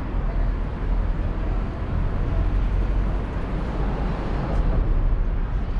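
Outdoor ambience dominated by a low, wavering rumble of wind buffeting the microphone during a walk.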